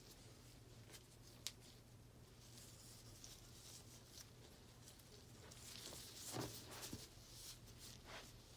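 Near silence over a low steady hum, with faint rustling of a damp T-shirt being handled by gloved hands. There is a sharp click about a second and a half in, and louder rustling about six to seven seconds in.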